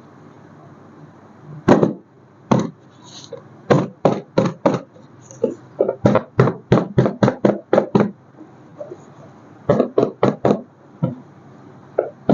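A run of sharp knocks and taps at irregular spacing, some alone and some in quick clusters of several a second, starting about two seconds in.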